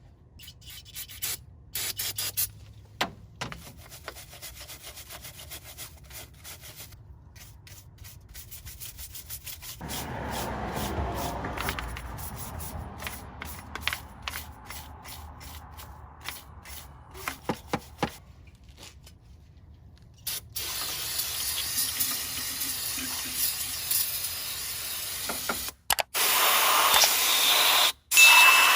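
MIG welder arc crackling in short runs while weld is built up on a broken exhaust manifold stud, then a louder steady hissing noise from about twenty seconds in that cuts out briefly twice near the end.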